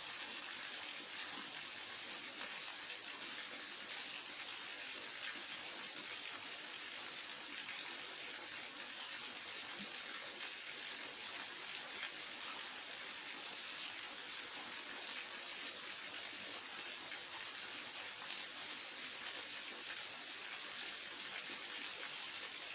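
Waterfall: a steady, unbroken rush of falling water, mostly a high hiss with little low rumble.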